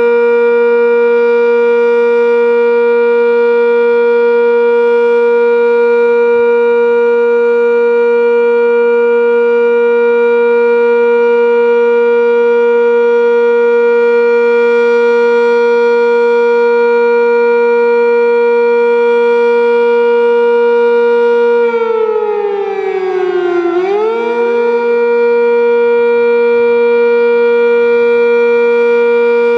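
Sentry 10V outdoor warning siren sounding a loud, steady alert tone. About two-thirds of the way through, its pitch sags and dips for about two seconds, then climbs back to the same steady note.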